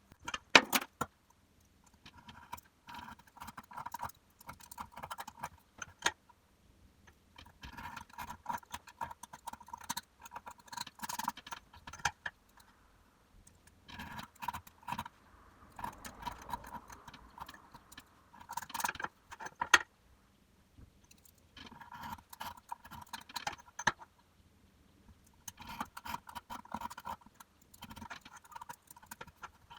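A knife cutting through leather in repeated strokes, each a scratchy scraping pass of a few seconds with short pauses between. A few sharp clicks come from the tools being set down or handled.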